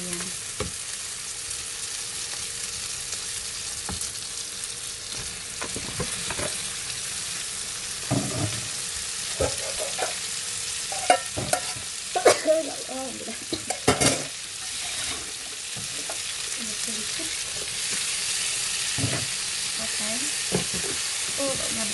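Chili and spice paste sizzling in a frying pan as raw goat meat chunks go in, with a cluster of knocks and clatter against the pan partway through, then stirring with a spatula. The sizzle is steady and grows a little louder near the end.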